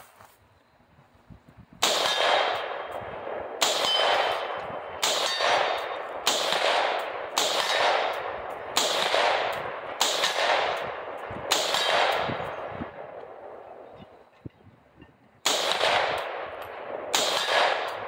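Ten rifle shots from a Palmetto State Armory PA-10 semi-automatic .308 fired offhand, each with a ringing decay. The steel plate target at 75 yards clangs on the hits. Eight shots come about a second and a half apart, then a pause of about four seconds, then two more.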